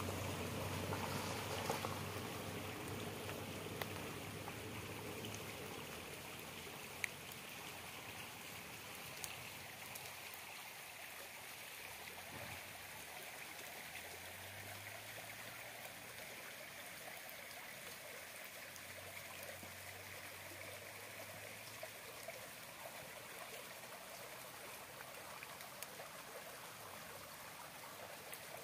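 Shallow mountain stream flowing over a gravel bed: a steady rushing and trickling that eases a little in the first several seconds, with a few scattered ticks and a faint low hum that comes and goes.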